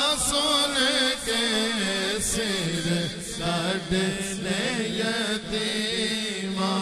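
A male voice chanting a naat, the melody sliding and ornamented from note to note over a steady held drone beneath.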